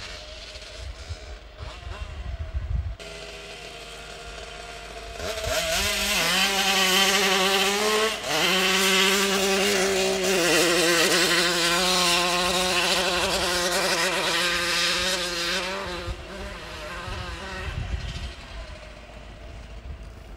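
Small two-stroke engine of a vintage moped running at full throttle up a hill-climb course: a loud buzzing note that rises in pitch, dips briefly about eight seconds in, then holds high and steady. It grows loud about five seconds in and fades after about sixteen seconds as the moped goes past.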